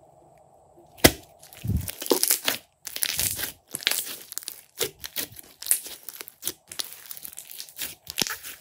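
Glossy slime being squeezed, stretched and folded by hand, giving a quick irregular run of sticky crackles, pops and squelches. It starts with a sharp pop about a second in.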